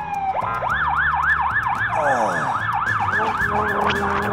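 Ambulance siren sound effect in a fast yelp, a rising-and-falling wail repeating about four times a second, starting about half a second in.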